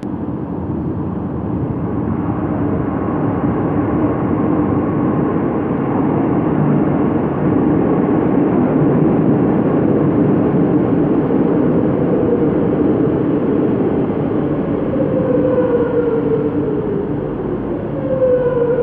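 Metro de Madrid Serie 8400 train entering the underground station: a sudden rise in rumble as it comes out of the tunnel, which then stays loud with a steady hum in it. In the last few seconds, a falling whine as the train slows to a stop.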